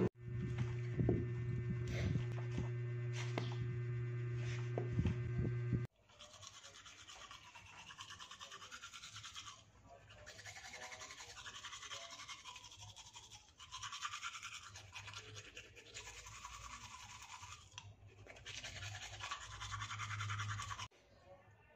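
Manual toothbrush scrubbing teeth, a rough brushing sound that goes on for about fifteen seconds. Before it, for about the first six seconds, a steady low hum with a few scattered clicks, which cuts off suddenly.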